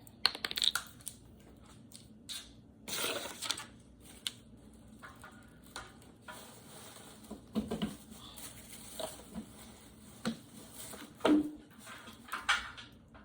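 Hands handling a hair dryer and its plug: scattered plastic clicks, taps and short rustles at irregular intervals, the loudest about a second in and near 11 seconds.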